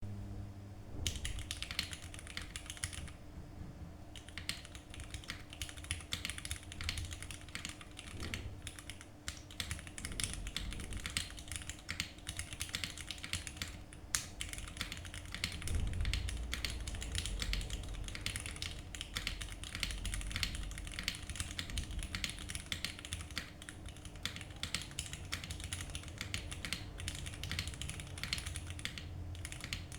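Fast typing on a MonsGeek M1 mechanical keyboard: a rapid, continuous stream of keystroke clicks starting about a second in, with a brief pause about three seconds in.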